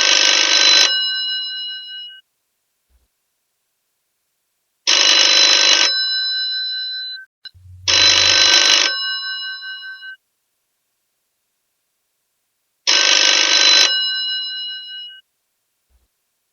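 Old telephone's bell ringing in rings of about a second each, four times, each ring trailing off in a fading bell tone.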